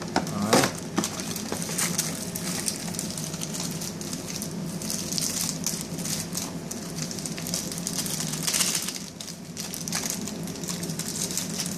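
Clear plastic accessory bags crinkling and rustling as they are handled, in irregular crackly bursts that are loudest a little past the middle and again about three quarters of the way through.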